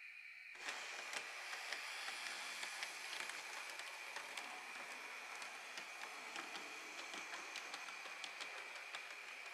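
H0-scale model railcar running on the layout's track: a steady rolling rush that starts suddenly about half a second in, scattered with many light clicks from the wheels on the rails.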